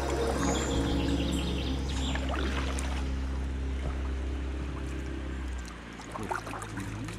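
Kayak paddles dipping and dripping water, with background music that fades and stops about five and a half seconds in; after that, paddle splashes and a few bird chirps.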